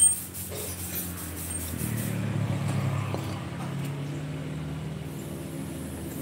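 A sharp click at the start, then the steady hum of an engine running that grows louder about two seconds in and eases off again near the end.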